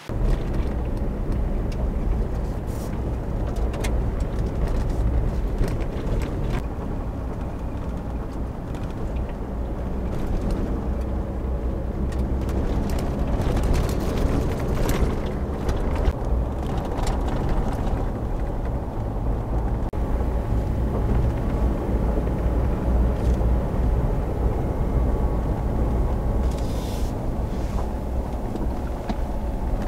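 A 2019 Ford Ranger driving on a gravel road, heard from inside the cab. There is a steady low rumble of tyres and drivetrain, with scattered knocks and clicks throughout.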